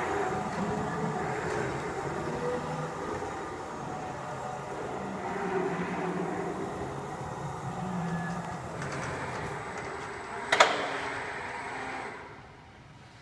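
BT electric reach truck running as it drives and handles a pallet load, a continuous hum whose tones shift in pitch, with one sharp clank about ten and a half seconds in. The sound falls away near the end.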